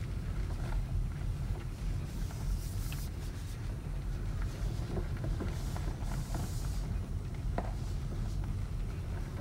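Car rolling slowly over gravel, heard from inside the cabin: a steady low rumble of the tyres with scattered small clicks and crunches of stones.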